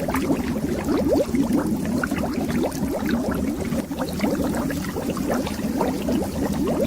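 Continuous underwater bubbling: a dense stream of bubbles, each a short rising blip, over a steady low rumble.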